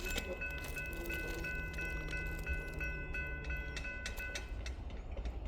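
Railroad grade-crossing bell ringing about three strokes a second, its high steady tones stopping about four seconds in, as a train approaches.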